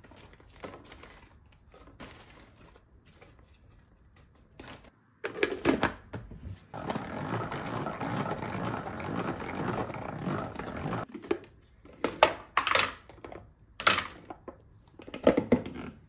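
Faint crinkling of a plastic produce bag, then a plastic salad spinner whirring steadily for about five seconds as its basket of wet lettuce spins. After it stops, a series of sharp plastic clacks as the lid and basket are lifted off.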